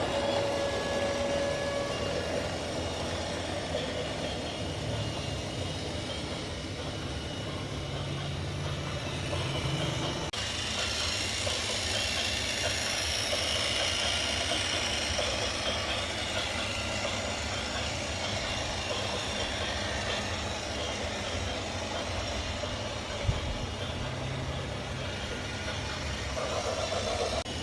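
Steady running noise of heavy vehicles, changing abruptly about ten seconds in.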